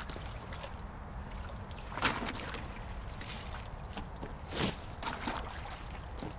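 Pond water sloshing and splashing as it is scooped out with a bucket and tipped out, by someone wading in the water. There is one splash about two seconds in and two more near the end.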